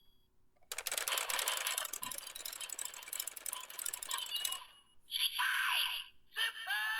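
Zenkaiger Geartlinger toy blaster sounding off for mecha mode: a rapid clicking clatter for about four seconds, then electronic voice and jingle sound effects from its small speaker.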